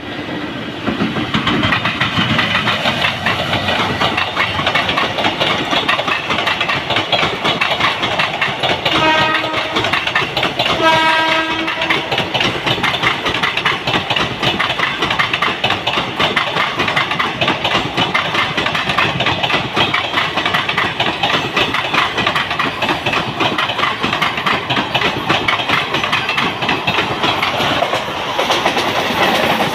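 Passing trains running close by, their wheels clattering steadily over the rail joints. A train horn sounds two short toots about nine and eleven seconds in.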